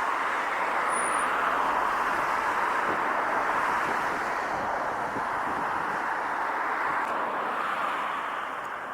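Steady hiss of road traffic on a busy road, easing off near the end.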